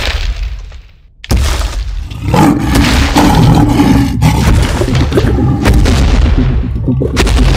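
Film sound effects for a giant rock monster: a sharp boom at the start that dies away, then after about a second a loud, low rumbling roar with heavy crunching thuds that carries on.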